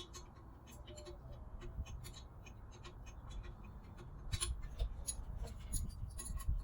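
Irregular light clicks and ticks of hand tools working on engine bolts, busier and louder from about four seconds in.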